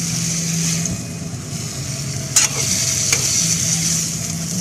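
Bottle gourd chunks sizzling in a hot wok as they are stirred with a metal spoon. The spoon knocks sharply against the pan twice, about halfway through and again a moment later. A steady low hum runs underneath.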